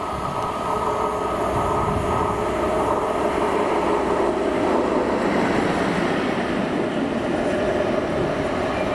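Class 56 diesel-electric locomotive running light engine, its Ruston-Paxman V16 diesel engine running steadily as it approaches and passes. The sound grows louder over the first five seconds, then holds.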